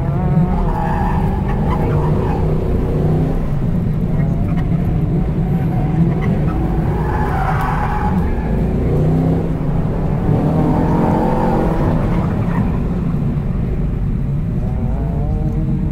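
Chevy SS's 6.2-litre V8 engine revving up and down repeatedly as the car is driven hard through an autocross course.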